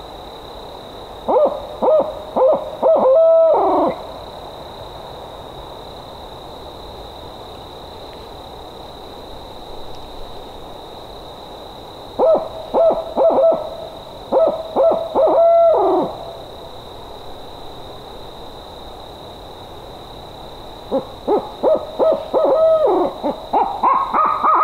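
A person's imitation of a barred owl's hoot, given as a locator call to make turkeys gobble: three rounds of quick hoots, each ending in a longer hoot that slides down in pitch.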